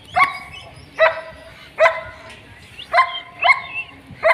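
German Shepherd puppy yapping repeatedly: about six short, high-pitched barks, one every half second to a second.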